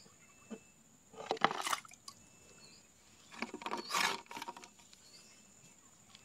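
Small plastic toy zebra sliding down a board into a pond and splashing into the water: two short noisy bursts, the louder one, the splash, about three and a half seconds in.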